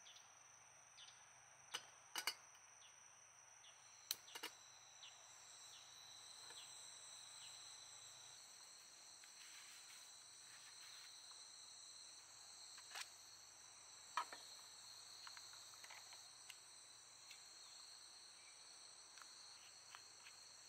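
Faint, steady high-pitched insect chirring, with a few light clicks and knocks from hands handling small camping gear. The loudest are two pairs of knocks, about two and four seconds in, and one more a little after midway.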